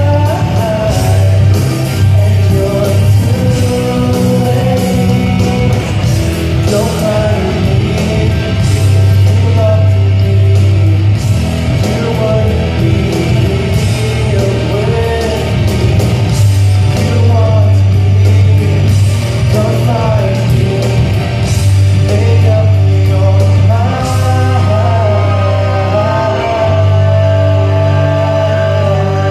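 Karaoke: a rock backing track with heavy bass and drums playing over the PA, with a man singing along into a handheld microphone.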